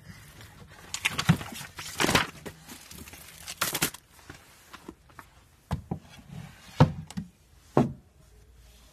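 Picture books being pulled and shuffled on a wooden shelf by a small child: irregular knocks and rustles, with a cluster of sharper knocks in the second half.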